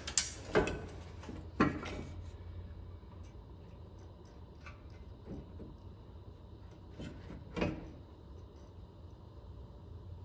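Metal clunks and scrapes from tools and a truck's transmission crossmember as it is worked loose and lowered, over a steady low hum. Three sharp knocks come in the first two seconds, then quieter fumbling, then another loud clunk about three quarters of the way through.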